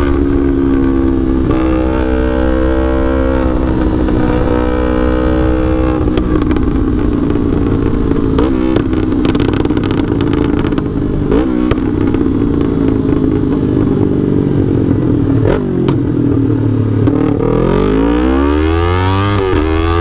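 Yamaha R3's parallel-twin engine running through a Full Pro aftermarket exhaust on a remapped ECU, on the move. The revs hold fairly steady with a few shifts at first, then fall away with several short blips, and climb hard near the end as the bike accelerates.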